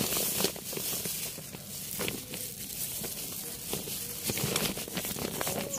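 Hands pulling apart a root-bound clump of mango ginger rhizomes and soil: irregular crackling and rustling of fibrous roots tearing and soil crumbling.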